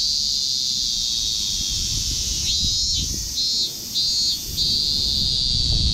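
A cicada singing very close overhead: a loud, high-pitched buzz that holds steady, breaks into two short pulses about halfway through, then holds steady again.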